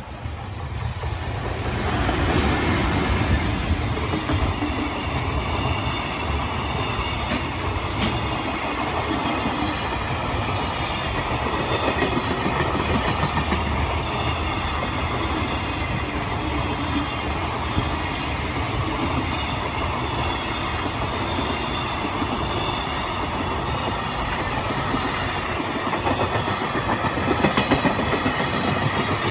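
Freight train passing, its wagons rumbling and clattering steadily over the rails. The sound swells over the first couple of seconds, and the clatter grows sharper and more rhythmic near the end.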